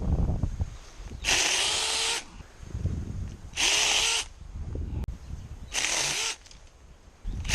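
Battery-powered mini chainsaw triggered in short bursts, the motor whining up and running for just under a second each time, three times, with a fourth burst starting near the end.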